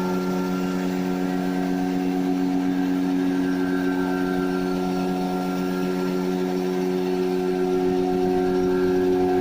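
Vacuum forming machine running with a steady hum of several unchanging low tones, a little louder near the end.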